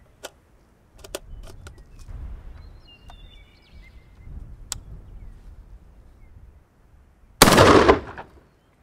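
A few sharp clicks of handling the 12-gauge GForce GF12AR AR-style semi-auto shotgun, then one loud shotgun blast about seven seconds in. The blast is a low-brass #6 steel load that fails to cycle the action and leaves the spent shell unejected.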